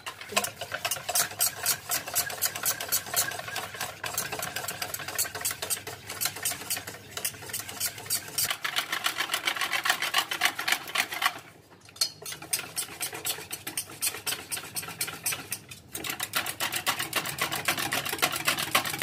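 A metal fork beating cream fast in a steel bowl, making rapid rhythmic clicking and scraping against the bowl, several strokes a second. It pauses briefly twice, about eleven and sixteen seconds in. This is chilled raw-milk cream being whipped by hand as it begins to thicken.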